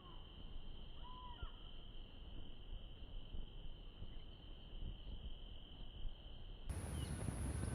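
Insects calling in one steady, unbroken high trill, with a short whistled bird call about a second in. Near the end the sound changes abruptly to a louder, higher insect drone over low rumble.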